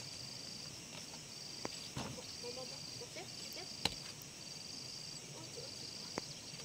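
Insects trilling in a high, regular pulse, about one trill a second, with three sharp knocks spread through.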